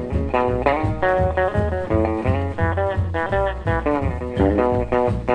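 Background music: an instrumental guitar break in a New Year song, quick runs of picked notes over a bass beat about twice a second.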